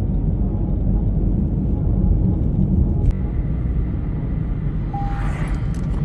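Car driving on the road, heard from inside the cabin: a steady low rumble of road and engine noise, with a single click about three seconds in and a brief beep about five seconds in.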